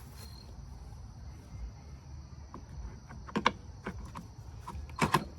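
A few sharp clicks and knocks from handling a replacement lawn mower wheel and its parts, the loudest about three and a half and five seconds in, over a steady high insect drone.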